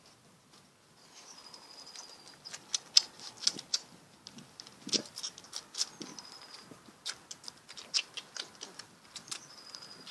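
Tibetan mastiff puppies suckling at their mother's teats: irregular wet smacking clicks, several a second, starting about two seconds in.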